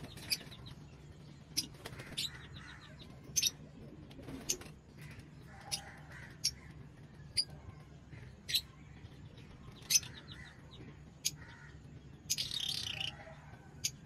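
Lovebirds giving sharp, shrill single chirps about once a second, with a short burst of rapid chattering near the end.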